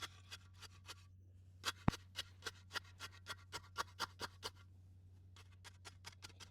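Faint quick scraping strokes, about four a second, with one sharper click near the start, as dry cement mix is worked and packed into a post hole around a steel post.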